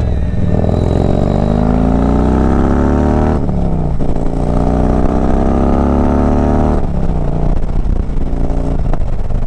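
Harley-Davidson Road Glide's V-twin engine accelerating through the gears. Its pitch rises, drops at an upshift about three and a half seconds in and again near seven seconds, then holds steadier.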